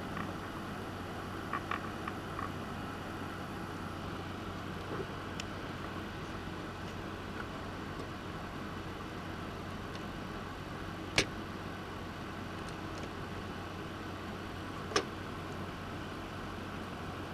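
Soldering at a workbench on a DIY mixer circuit board: a steady hiss and low hum, a few faint ticks early on, and two sharp clicks about four seconds apart, tools or parts tapping on the board.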